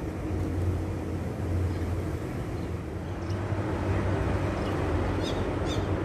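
Steady low rumble, with a few short high bird calls about five seconds in.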